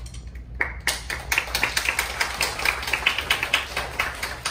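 Audience of schoolchildren clapping: many quick, uneven claps starting about half a second in and thinning out near the end.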